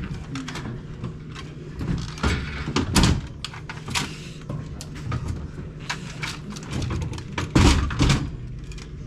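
Irregular knocks and clunks, like panels or doors being handled. The loudest come about three seconds in and again near the end, over a steady low hum.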